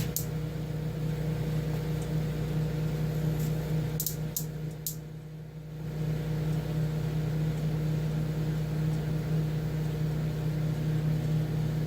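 Microwave oven running: a steady low hum, with a few faint clicks about four seconds in and a brief drop in level around five seconds in.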